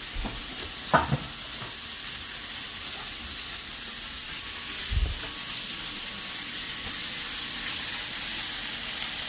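Seasoned chicken pieces sizzling in a frying pan: a steady frying hiss. A sharp knock comes about a second in and a dull thump about five seconds in.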